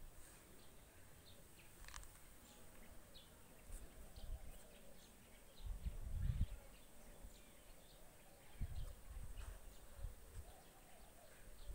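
Faint outdoor ambience with scattered faint bird chirps. A few low rumbling bumps from the phone microphone being handled, the strongest about six seconds in.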